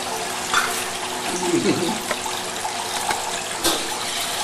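Food sizzling in a wok as it is stir-fried, a steady hiss, with the metal spatula scraping and clinking against the wok a few times.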